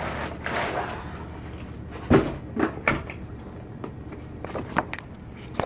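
A cardboard shipping carton being handled and unpacked: rustling at first, then a few sharp cardboard knocks about two seconds in as the boxed hard drive is taken out and set down, with a few lighter knocks near the end.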